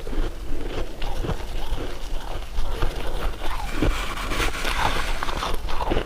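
Close-miked eating sounds: biting and chewing on a dessert, a dense run of small crackles and clicks.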